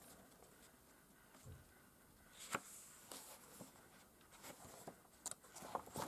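Faint handling of a hardcover book: a page is turned, giving a few soft paper ticks and a brief rustle. A crisp tick comes about two and a half seconds in and a couple more near the end.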